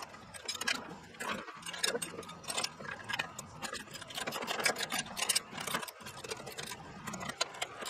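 Hand ratchet wrench clicking in quick runs of strokes as bolts are tightened by hand on a steel band sawmill frame.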